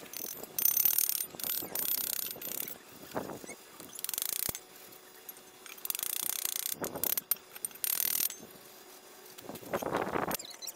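Steel wire hand brush scrubbing a welded joint on steel square tubing, cleaning the fresh weld, in a series of short scraping strokes with gaps between them, with a few sharp metal clicks.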